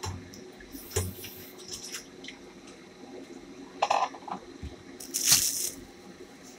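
Kitchen work: a few sharp knocks and clatters, then a short watery splash or hiss a little after five seconds.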